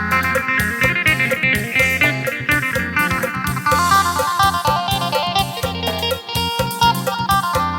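Lam sing music: a phin plucking a fast melody over a steady bass line and drum beat.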